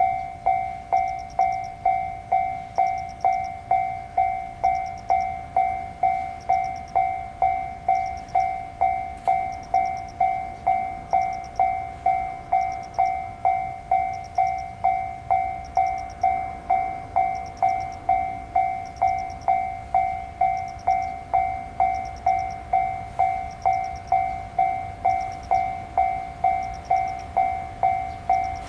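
Japanese railway level-crossing warning bell ringing at an even pace of about two strokes a second, with a low rumble underneath.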